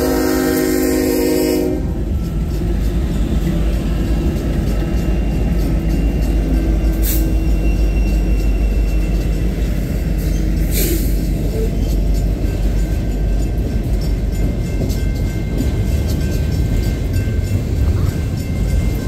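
A locomotive horn chord cuts off about two seconds in. Then a slow-moving freight train rumbles and clatters past, its hopper cars and autoracks rolling by, with two brief sharp high sounds partway through.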